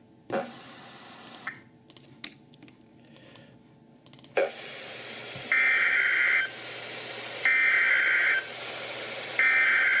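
Three bursts of Emergency Alert System SAME header data received over radio, each about a second long and about a second apart, over a steady hiss that starts a little after four seconds in. The headers mark the start of an AMBER Alert broadcast. A few faint clicks come before the hiss.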